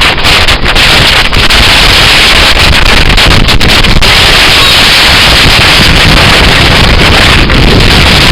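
Blizzard wind blasting across the camera microphone: loud, steady wind noise that pushes the recording to its limit.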